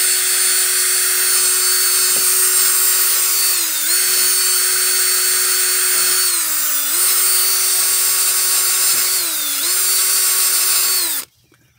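DeWalt cordless drill spinning a wire wheel brush against a battery cable terminal to scrub off corrosion: a steady motor whine over scratchy bristle noise. The pitch sags three times as the brush is pressed harder, and the drill stops near the end.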